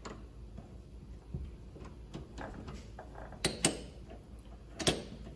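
A mini lathe's three-jaw chuck being tightened with its T-handle chuck key on a steel bar: scattered light metal clicks and clinks, with a few sharper clanks about three and a half seconds in and again near the end.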